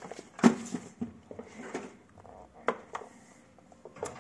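A handful of light knocks and clicks from a portable radio being handled and set down on a hard surface, likely onto a scale to weigh it; the loudest knock comes about half a second in.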